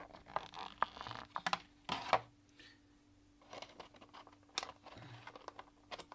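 Rustling, scraping and a few sharp clicks of small plastic parts being handled, as a magnetic cable's small connector tip is worked out of its tight holder. The busiest handling comes in the first two seconds, and again from about three and a half seconds in.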